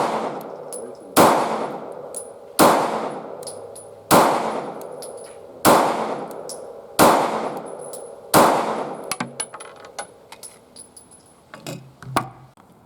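Taurus GX4 pistol fired in slow, steady succession, seven shots about one and a half seconds apart, each with a ringing echo tail. About eight and a half seconds in, the shooting stops and only light clicks and taps follow.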